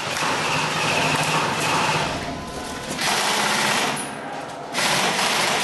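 Airsoft electric rifle firing long full-auto bursts, three in a row: a rapid mechanical rattle with short pauses between bursts.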